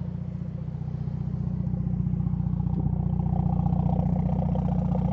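Hyundai Elantra N's turbocharged 2.0-litre four-cylinder running at idle in N mode, its exhaust steady and growing a little louder. No rattle comes from the exhaust valve, which has a new Torcon spring: the fix is working.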